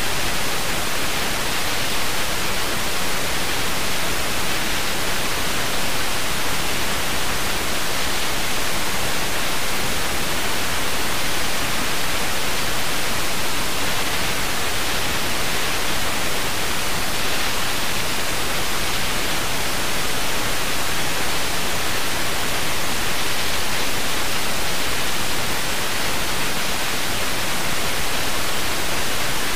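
Steady, even hiss of FM radio static: the receiver is tuned to a frequency with no signal because the station has gone off the air.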